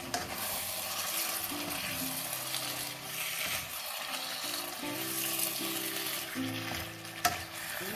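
Vegetables sizzling in a hot wok while a wooden spatula stirs and turns cubed butternut squash, broccoli and tomato, the pieces scraping and shuffling against the pan. One sharp knock near the end.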